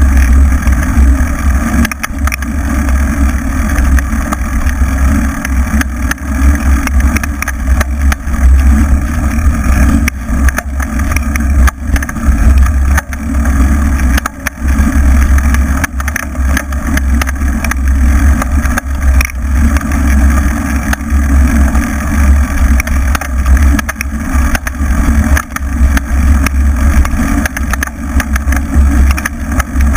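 Wind buffeting and rumble on a camera mounted on an off-road bike riding a bumpy grass-and-dirt track. The noise is heavy and choppy, rising and falling with the bumps, with no clear engine note rising or falling in pitch.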